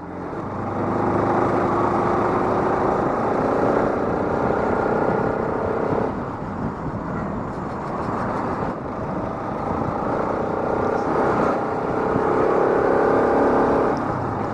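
Bajaj Pulsar RS200's single-cylinder engine running on its stock exhaust while being ridden, the note rising as it pulls, dropping sharply about six seconds in, then climbing again.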